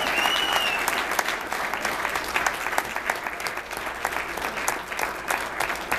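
Audience applauding, the clapping gradually thinning out and getting quieter, with a high cheer trailing off in the first second.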